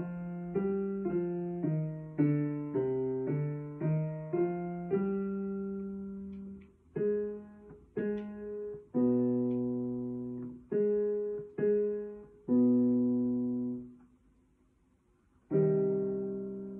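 Digital piano playing a C harmonic minor technique exercise. Quick broken chords for about five seconds, then slower chords, some held a second or more. A short pause near the end, then another chord.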